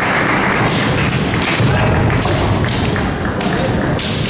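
Kendo bout: a run of thuds and knocks from stamping feet and clashing bamboo shinai, over the noise and voices of a busy tournament hall.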